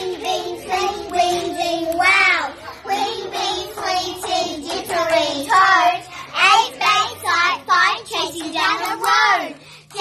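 A small group of young children singing together.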